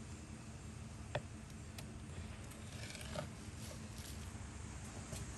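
Faint scraping and small clicks of a knife trimming fat from a raw brisket on a wooden cutting board, with one sharper tick about a second in.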